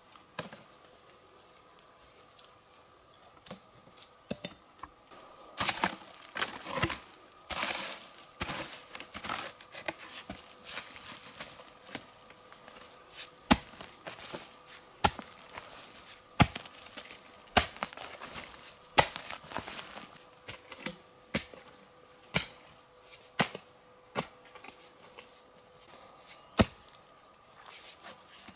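Hand-work sounds of tearing and rustling mixed with sharp strikes, irregular at first. From about halfway on they settle into single sharp chopping strikes roughly once a second.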